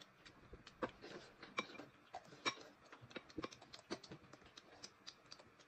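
Faint, irregular clicks and cracks of cooked crayfish shells being broken and peeled by hand, a few a second.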